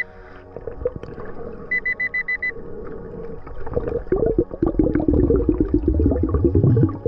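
Underwater metal detector giving a quick run of about six high beeps, signalling metal under the sand, heard through water. From about four seconds in, a hand digs into the seabed sand with a loud, dense crunching and churning.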